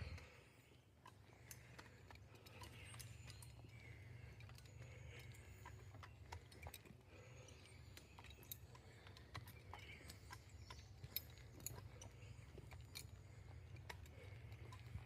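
Near silence: faint rural outdoor ambience, a steady low rumble with scattered faint clicks and a few faint short chirps.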